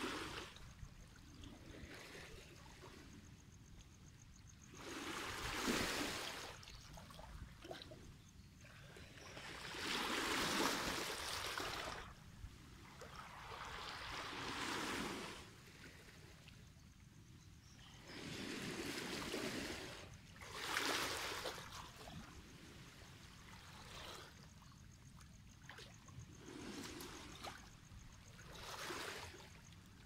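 Small waves washing in over a stony beach of rounded rocks and draining back, one wash swelling and fading every few seconds.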